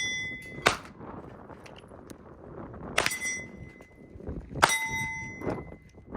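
Glock 19 9mm pistol shots spaced a second or two apart, several followed by the clear ringing of struck steel plate targets.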